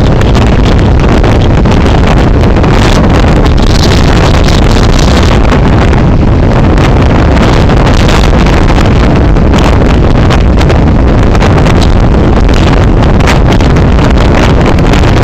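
Strong storm wind blasting across a phone's microphone: a loud, constant low rumble with no let-up, the breaking surf lost inside it.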